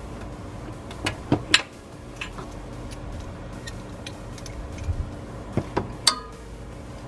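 Hand tools clicking and clinking on metal: a socket on a magnetic-tipped extension working an injection pump bolt. There are three sharp clicks close together about a second in, then a few more near the end, the last a short ringing clink.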